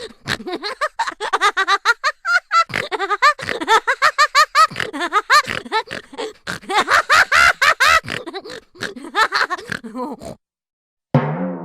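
Cartoon sound effect of rapid, high-pitched, squeaky vocal chatter, like sped-up giggling, about five short bending squeaks a second for some ten seconds. Near the end comes a twangy note that rings on and fades.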